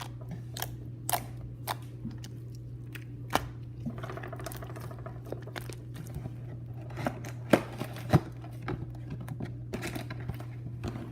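Slime being handled, giving irregular sharp clicks and pops, the two loudest near the end, over a steady low electrical hum.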